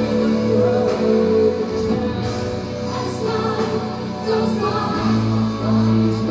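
Symphonic metal band playing live, with a woman singing long held notes over the band.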